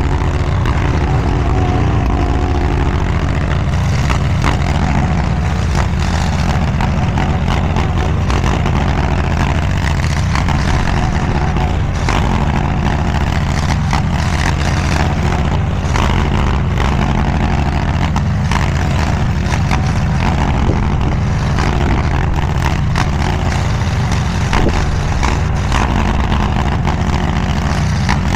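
Diggit SCL850 stand-behind mini skid steer's engine running steadily while the machine levels dirt, with occasional brief knocks.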